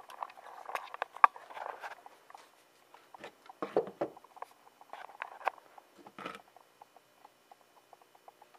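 Handling noise from a molded plastic knee armor piece being moved about on a wooden workbench: scratchy rustling and small clicks, with a couple of soft knocks about halfway through and a louder knock at the very end.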